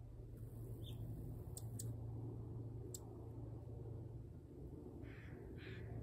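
Hummingbird hovering at a nectar feeder: a low steady hum of its wings, with a few sharp, very high chip notes in the first three seconds. Near the end come two short caws.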